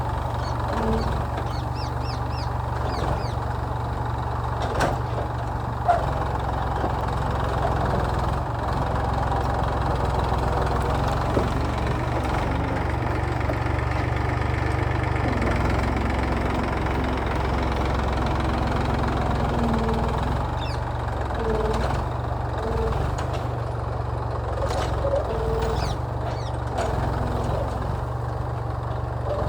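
Massey Ferguson tractor's diesel engine running steadily under the load of pulling a plough. A single sharp click sounds about six seconds in.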